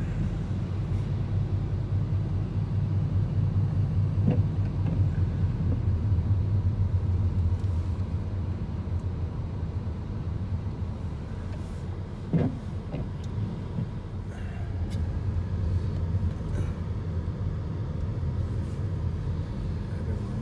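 Road noise heard inside a moving car's cabin: a steady low rumble of tyres and engine.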